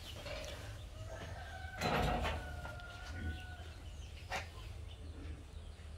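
A rooster crowing, one long held note about two and a half seconds in after a shorter call earlier, over a low steady hum. A brief louder noisy burst comes near two seconds and a single click near the end.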